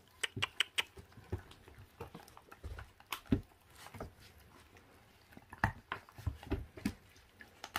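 26-day-old puppies chewing and tearing at raw meat on rib bones, an irregular run of small clicks, snaps and wet chewing sounds, with paws scrabbling on a plastic crate.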